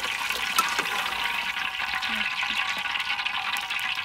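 Coconut water poured in a steady stream into a large aluminium pot of duck curry, splashing and gurgling into the liquid.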